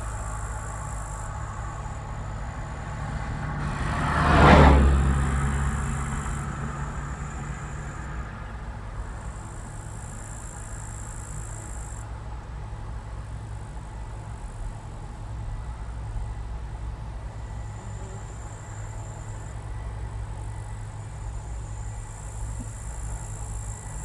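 New Holland CX860 combine harvester running with a steady low drone. It grows louder to a peak about four and a half seconds in, then fades back.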